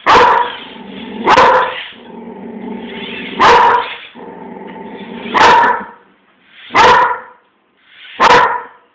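A dog barking repeatedly at a small wheeled robot: six sharp barks, one every one and a half to two seconds.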